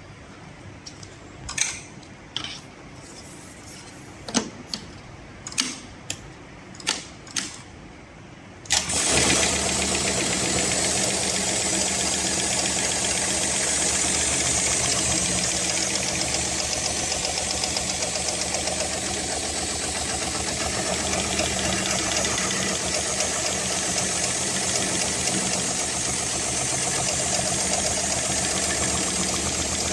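HighTex 7273CNC heavy-duty programmable pattern sewing machine. A few short, sharp clicks come first. About nine seconds in the machine starts suddenly and then sews steadily at speed with a dense, fast stitching clatter.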